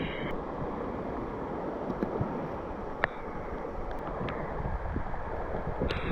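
Wind buffeting the microphone, a steady uneven rumble with a hiss above it, and a single sharp click about three seconds in.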